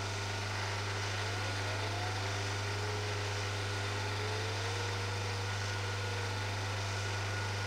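Belmash DS260-W drum sander running with a steady hum from its 1.1 kW direct-drive motor. Over it, a faint whine from the conveyor's DC feed motor and worm gearbox rises in pitch for a few seconds as the feed-speed control is turned up toward maximum belt speed.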